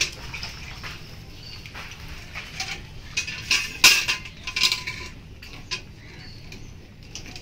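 Steel milk pail clinking and ringing as it is handled and struck under the cow, with a cluster of irregular metallic clinks about three to five seconds in.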